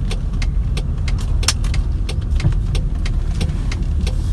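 Inside a car moving slowly: a steady low engine and road rumble, with a regular ticking about three times a second.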